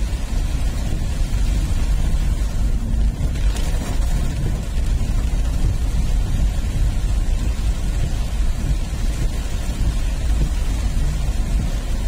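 Steady deep rumble of wind buffeting the microphone on the move, with an even hiss of rain.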